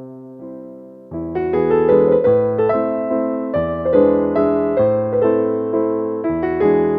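Background piano music: a few soft held notes fade, then a fuller passage of quicker notes comes in about a second in.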